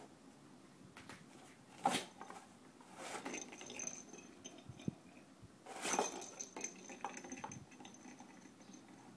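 A cat batting a small ball around inside a cardboard box: scattered knocks and rattles of the ball and paws against the cardboard, the sharpest about two seconds in and a flurry about six seconds in, with a faint high ringing after some of the hits.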